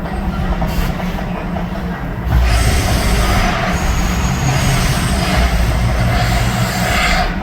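The Mirage volcano show's deep, steady rumble, with a loud rushing hiss that swells in about two seconds in and falls away near the end.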